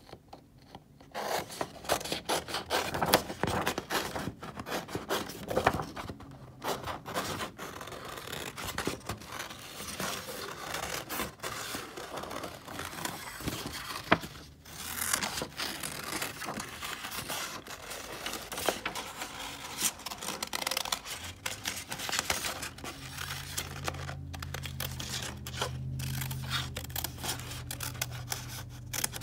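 Scissors cutting through construction paper in a long run of short snips, starting about a second in, with the paper scraping against the blades as the sheet is turned.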